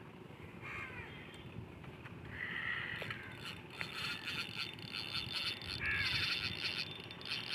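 Crows cawing several times, with a denser rapid rattling sound joining in during the second half.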